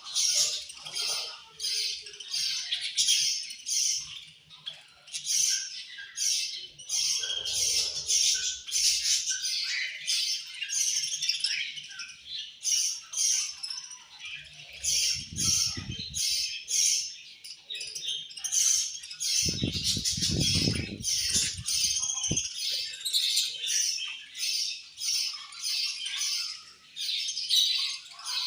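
A flock of budgies chirping and squawking continuously, many short high chirps overlapping. Low rumbling thumps come twice, about halfway through and again a little later.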